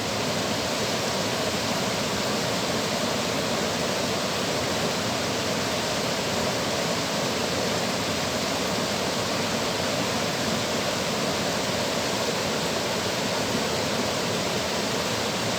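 Steady rush of fast-flowing water at a dam.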